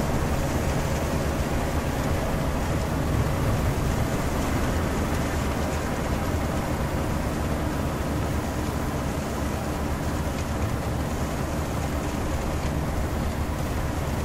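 Steady mechanical hum of rice combine harvesters running, low engine drone under a level hiss.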